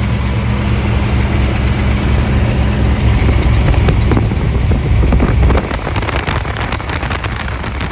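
Chevrolet 454 big-block V8 running, with a rapid, even high-pitched chirping from the accessory belts: the squeal that began after new belts were installed. The engine drops in loudness about five and a half seconds in.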